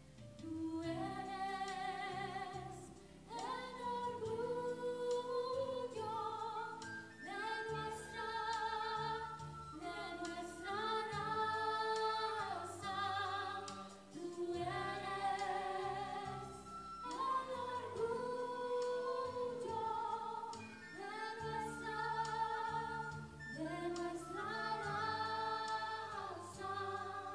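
Two girls singing a slow song together, with long held notes that waver in vibrato and phrases a few seconds long, over sustained electric keyboard chords.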